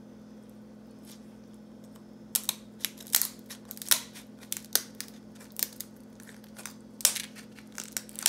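Kitchen shears cutting through a lobster tail's shell: a run of sharp, irregular snips and cracks starting about two seconds in, over a steady low hum.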